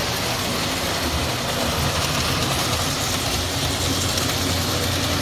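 O gauge model steam locomotive running around the layout: a steady rumble of its motor and wheels on the track.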